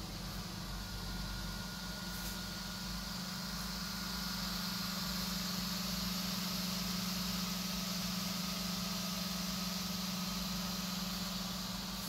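Steady low electric hum with a faint hiss, a little louder from about four seconds in.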